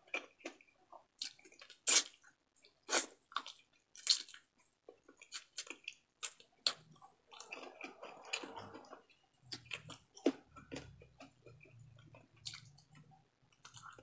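Close-miked eating sounds: irregular wet chewing and lip smacks with short clicks as fried frog meat is picked off the bone by hand and chewed.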